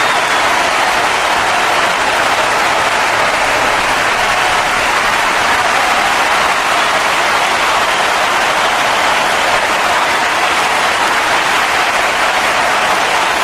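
Wrestling arena crowd cheering and applauding as one steady, unbroken mass of noise, the reaction to a three-count pinfall.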